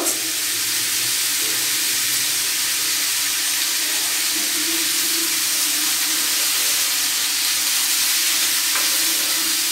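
Shrimp with peppers and garlic sizzling in olive oil in a frying pan over a gas flame, a steady even hiss.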